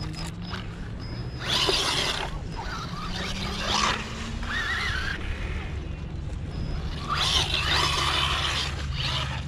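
Xinlehong Q901 1/16-scale RC monster truck driving on sand: its electric motor and gears whir with a slowly rising pitch. It surges louder twice, about a second and a half in and again about seven seconds in.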